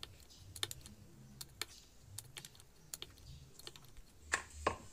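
Wooden rolling pin and round wooden rolling board clicking and tapping lightly as a roti is rolled out, with two louder knocks near the end.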